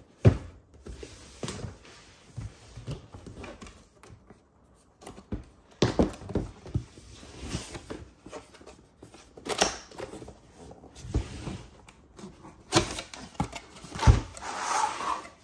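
Cardboard product box being handled and opened: scuffing and rubbing of card against card and hands, with a handful of sharp knocks as the box is turned and set down, and a rustle near the end as the inner box's lid flap is lifted.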